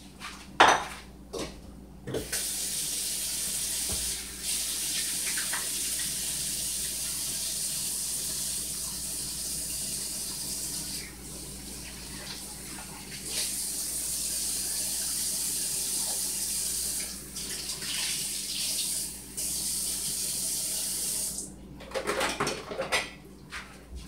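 Kitchen faucet running into a sink as hands are washed and warm water is drawn. The steady rush dips and changes several times as the stream is broken. It shuts off about two and a half seconds before the end, followed by a few knocks.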